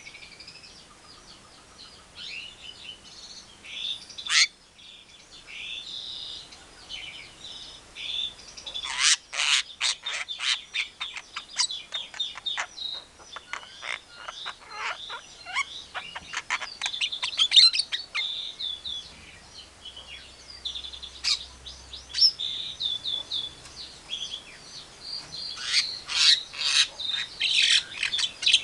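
Javan myna (jalak kebo) calling: a busy, varied string of chirps and whistles, broken by fast rattling runs of sharp notes about nine seconds in and again near the end.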